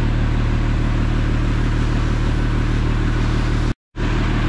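Fire truck's engine running steadily to drive its water pump, with the hiss of a high-pressure water jet from the fire hose. The sound cuts out for a split second near the end.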